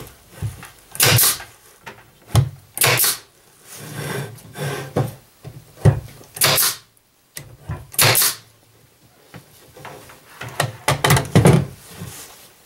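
Pneumatic brad nailer firing four times, each a sharp shot with a short hiss of air as it drives a brad into particleboard, with lighter knocks of the boards being handled between shots.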